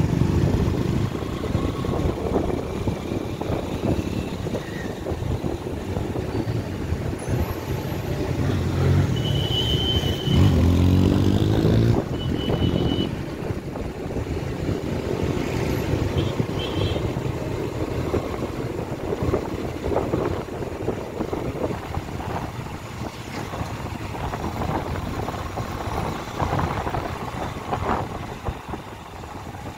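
Road vehicle noise with a continuous low rumble, typical of riding a motorbike or scooter along a road. About ten seconds in, an engine with a clear pitch swells louder for a couple of seconds. Brief high beeps sound around then.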